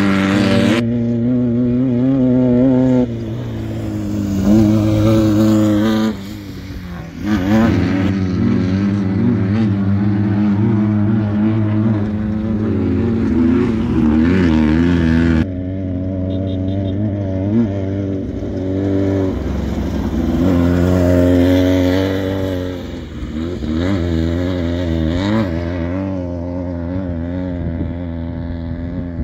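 Off-road race cars, including a VW Baja Bug, running hard along a dirt desert course. Their engines rev up and down as they pass one after another, and the sound changes abruptly several times.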